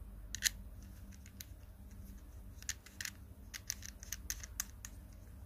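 Small hard plastic and metal clicks and taps from a tripod quick-release plate and an action camera frame being handled and fitted together. The sharpest click comes about half a second in, with a run of lighter clicks later on.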